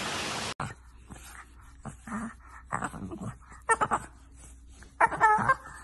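Steady rain that cuts off abruptly about half a second in. Then a bulldog puppy gives short whining cries and lower grumbles, the loudest a high cry near the end.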